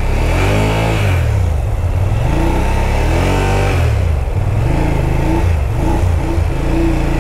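BMW F 850 GS parallel-twin engine revved up and down again and again, about every second and a half, as the bike wades through deep floodwater. The rider says the engine came close to stalling.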